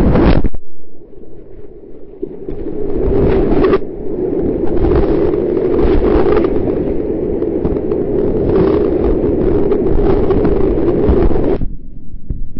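White-water river rapids rushing, picked up by a point-of-view camera's microphone with a heavy low rumble of water and wind buffeting. The sound shifts abruptly a few times, just after the start, at about four seconds and near the end.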